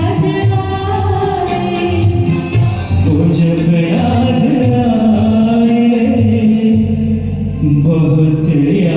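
Music of a Hindi film song duet played through a karaoke set-up: a backing track with a steady low beat and long held melodic notes.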